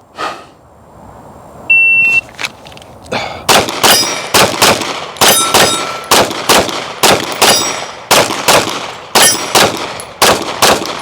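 Shot timer beeps once, then a Glock 45 9mm pistol fires a long string of shots, mostly in quick pairs, with steel targets ringing when hit.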